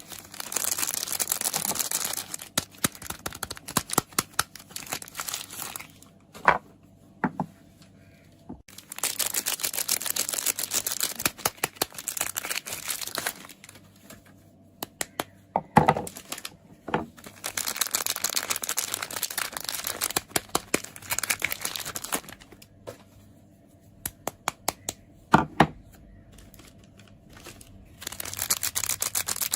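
Soap packaging being crinkled and torn open in several long stretches of crackling. Between them come a few sharp taps on the soap or its box.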